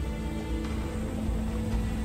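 Background music: sustained low notes over a deep drone.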